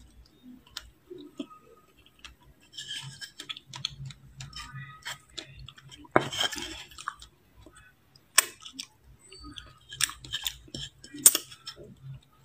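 Metal spoon scraping through matcha-powdered ice in a ceramic dish, with several sharp clinks of the spoon against the dish in the second half.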